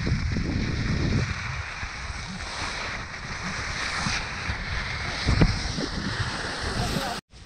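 Wind rushing and buffeting over an action camera's microphone while moving fast over snow behind a running dog team, with skis hissing on the snow. A louder thump comes about five seconds in, and the sound cuts out briefly near the end.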